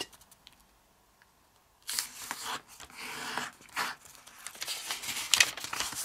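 A sheet of origami paper being folded and creased by hand on a table: rustling and sliding of the paper with short sharp crackles as the creases are pressed down. It starts about two seconds in, after a near-silent start.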